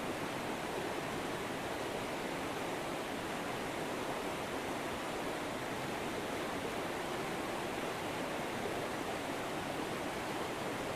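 River current flowing over rocks: a steady, even rush of water.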